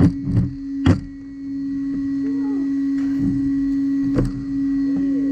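Electric unicycle's hub motor giving a steady hum as it rolls slowly over a shop doorway threshold, with a few sharp knocks in the first second and one more about four seconds in.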